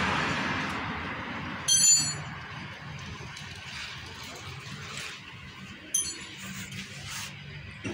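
A sharp metallic clink with a brief high ring about two seconds in, and a lighter metallic click near six seconds, over a steady low hum and fading background noise.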